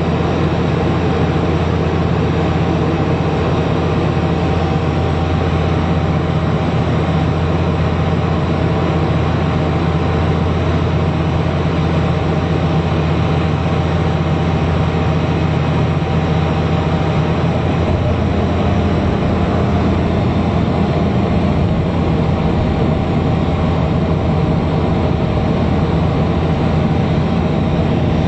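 Steady drone of a Bombardier Q400 NextGen's Pratt & Whitney PW150A turboprops and six-bladed propellers heard inside the passenger cabin, a deep propeller hum under a rushing airflow noise, during the descent with the main landing gear extended. The hum's tone shifts slightly about two-thirds of the way through.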